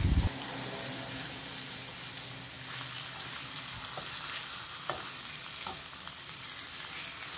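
Chicken thighs sizzling as they fry in hot paprika oil in a pan. There is a low thump at the very start, and a few light clicks about four to six seconds in as the pieces are turned with tongs.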